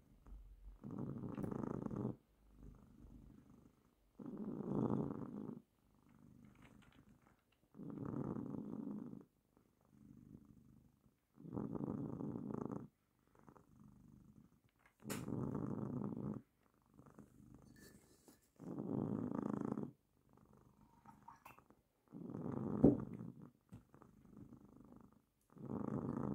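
Domestic cat purring steadily, in alternating louder and softer stretches that repeat about every three and a half seconds.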